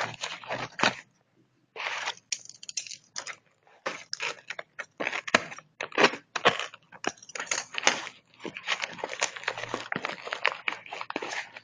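Packaging being torn open and crinkled by hand: a run of irregular crackling, crunching and ripping noises, with a brief pause about a second in.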